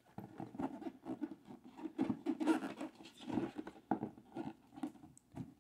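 A rigid cardboard record box being handled: the tight-fitting lid scraping and rubbing against the box as hands work it loose, with irregular scuffs and light knocks.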